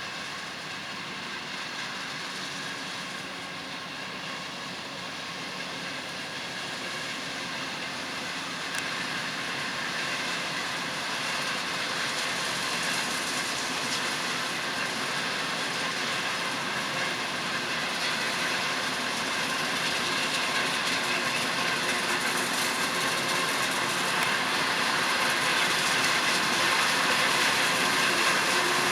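Krone BiG X 1180 self-propelled forage harvester working in maize: a steady mechanical whine of several fixed tones over heavy machine noise, growing steadily louder throughout.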